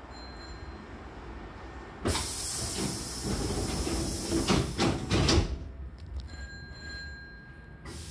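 Hankyu train's double sliding passenger doors closing. A sudden burst of air hiss comes about two seconds in, typical of air-operated door engines. The door leaves slide shut over the next three seconds and meet with a few knocks.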